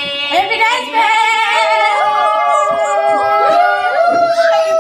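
A group of people, mostly women, loudly singing a birthday song together, with many voices overlapping on long held notes.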